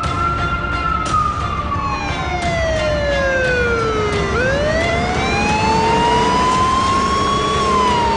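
Ambulance siren wailing in a slow rise and fall of pitch, each sweep taking several seconds, over the low rumble of the vehicle on the road.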